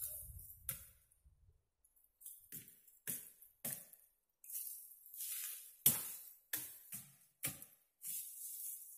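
A string of sharp cracks and chops as thin bamboo stalks are hacked and broken off a clump, with leaves rustling between the strokes; the loudest crack comes about six seconds in.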